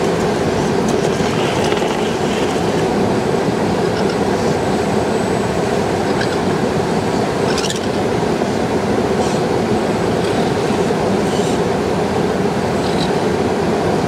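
Steady rush of flowing river water, with a few faint clicks near the middle.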